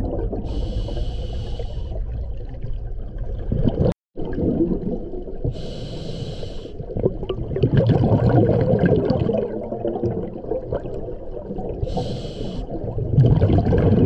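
Scuba diver breathing underwater through a regulator. Three hissing inhalations through the demand valve alternate with long stretches of exhaled bubbles.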